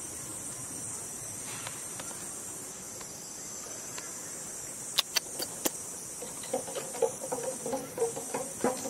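Steady high-pitched drone of an insect chorus in the trees. A few sharp clicks about five seconds in, then a run of short, low popping sounds near the end.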